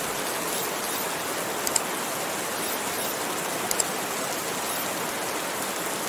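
Steady rain hiss with raindrops tapping on a window pane, a few sharper drop taps standing out about two seconds and four seconds in.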